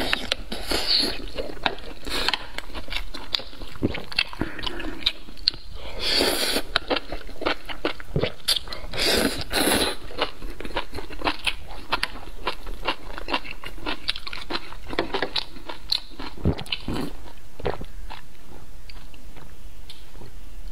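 Close-miked eating sounds: a person chewing and slurping spicy hot pot noodles, with wet smacking clicks and a few louder slurps.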